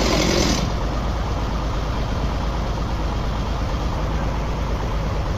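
Heavy machinery engine running steadily with a low rumble. A louder, hissing noise stops about half a second in, leaving the engine alone.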